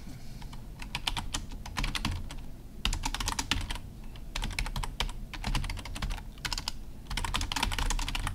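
Typing on a computer keyboard: quick runs of keystrokes with a few brief pauses between them.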